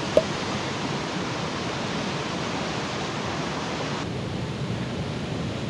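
Steady rush of a mountain stream cascading over rocks, with one short sharp tick just after the start.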